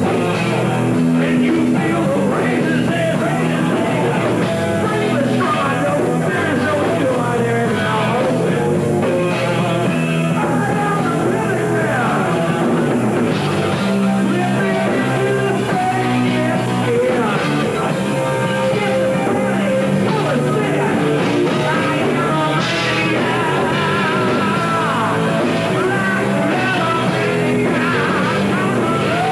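Live heavy metal band playing: a male singer over electric guitar, bass guitar and drums, dense and steady, recorded by a camcorder.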